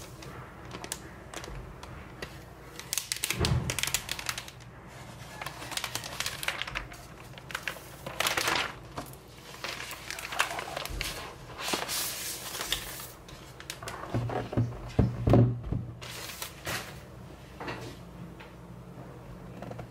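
Handling noises from unpacking a 16-inch MacBook Pro: a thin protective sheet rustling as it is pulled off, with irregular taps and knocks as the aluminium laptop is lifted, turned and set down on the desk.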